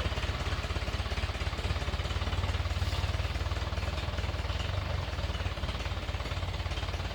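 An engine running steadily with a fast, even low chugging.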